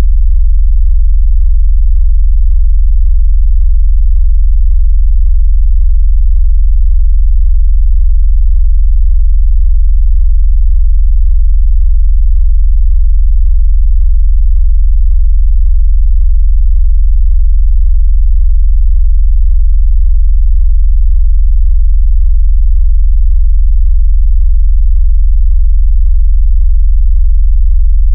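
Loud, steady, very deep synthesized sine tone with a fast, even pulsing flutter: a bass 'vibration sound' made to shake a phone or speaker and drive water out of the speaker.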